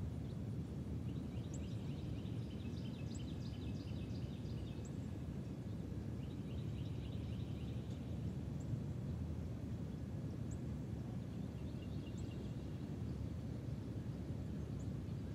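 Outdoor ambience: a steady low rumble, with birds giving rapid high trills in short bursts and a few single high chirps.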